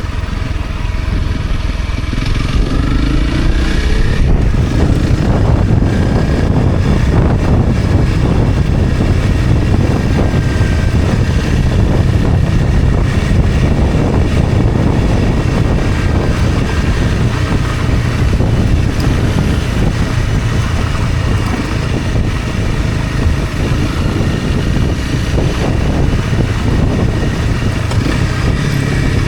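Honda CRF250 Rally's single-cylinder engine running steadily as the bike rides down a mountain dirt road, under a steady low rumble, with a few faint rises in pitch near the start.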